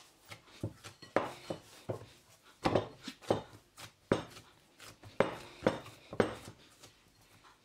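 Cornmeal dough being kneaded by hand in a glass bowl: an irregular series of soft slaps and squelches, some knocking against the glass.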